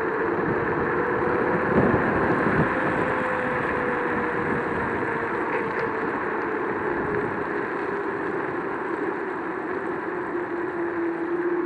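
Joyor S10-S electric scooter riding on pavement. The hub-motor whine climbs a little as it speeds up, then sinks slowly as the scooter slows, over a steady rush of tyre and wind noise. A couple of knocks come about two seconds in.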